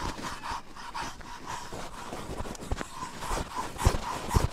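Metal curry comb scraped in repeated strokes over a horse's coat, a rhythmic rasping, with two dull thumps near the end.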